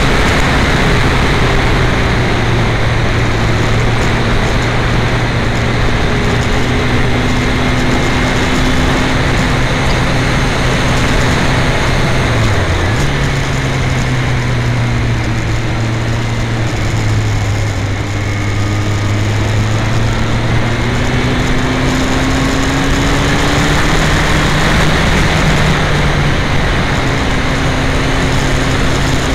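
Yamaha FZ1 motorcycle's inline-four engine running at road speed, heavily overlaid by wind rushing over an uncovered camera microphone. The engine note dips sharply for a moment about a third of the way in, sits lower through the middle, then climbs again.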